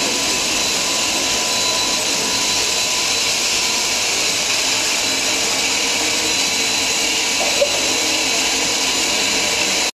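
Steam locomotive 3254 standing under steam, giving off a loud, steady hiss that cuts off abruptly near the end.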